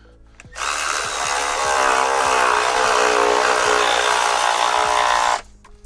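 Cordless electric ratchet running steadily for about five seconds, spinning a nut down the threaded rod of a golf-cart battery hold-down. It starts about half a second in and cuts off sharply near the end.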